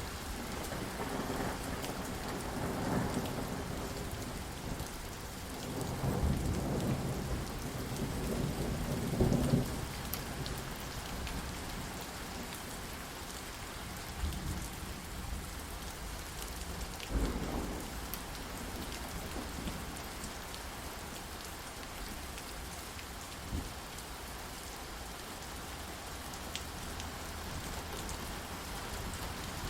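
Steady rain falling, with rolling thunder: long low rumbles over the first ten seconds, a sharper clap a little past halfway, and a smaller one later.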